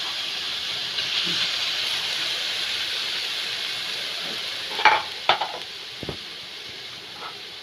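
Prawns sizzling as they dry-fry in a pan, their water cooking off. The hiss slowly fades, with a few short knocks about five seconds in.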